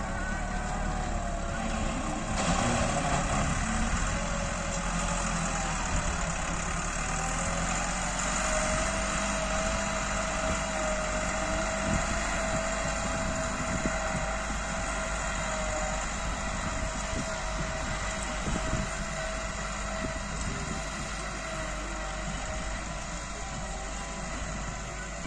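Massey Ferguson 375 tractor's diesel engine running steadily under load while pulling a seven-tine chisel cultivator through dry soil, with a steady whine through the middle stretch.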